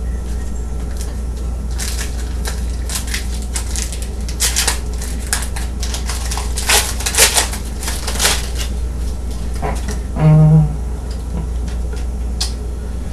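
Crinkling and crackling of a foil trading-card pack wrapper being torn open and handled, with the cards shuffled through. The crackles come in quick irregular bursts, busiest through the middle, and fade out near the end.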